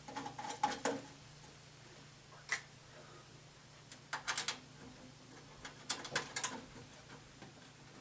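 Short clusters of metallic clicks and scrapes, four times, as the sheet-metal side panel of a desktop computer case is fitted and secured by hand.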